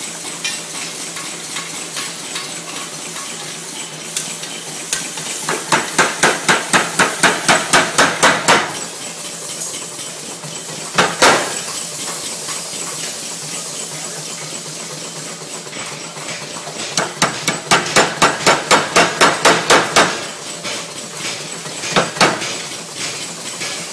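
Massey power hammer striking hot steel in two rapid runs of blows, about four to five a second and some three seconds each, with a single heavier blow between the runs and another near the end: forging a set down in a bar. A steady background noise runs under it.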